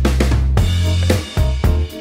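Background music: a drum kit playing a steady beat over a bass line.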